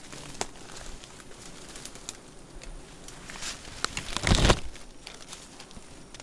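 Clear plastic bag crinkling and twigs and dry leaves rustling in a series of short crackles as gloved hands handle them. About four seconds in, a loud crinkle sounds as the bag brushes close past the microphone.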